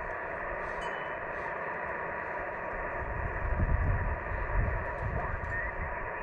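Static hiss from an amateur radio transceiver's speaker while it listens on an empty band, with a few faint steady tones in it. Gusts of wind rumble on the microphone in the second half.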